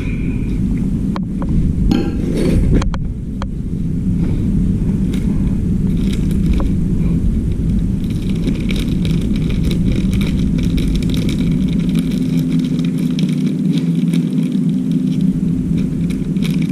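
Steady mechanical hum, with sharp clicks and a few metallic clinks in the first three seconds and lighter ticking later on.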